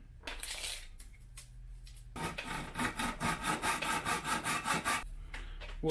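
Hand hacksaw cutting a thin metal angle strip: even back-and-forth strokes, about four a second, starting about two seconds in and stopping about five seconds in.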